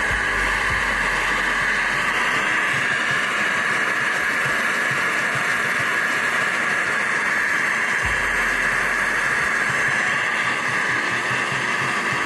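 Handheld gas torch burning with a steady hiss as it heats an aluminum flange plate for brazing.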